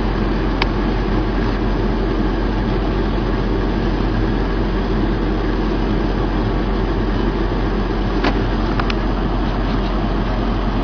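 Steady jet engine drone inside a fighter cockpit, an even rushing noise over a low hum, with two faint clicks, one just after the start and one near the end.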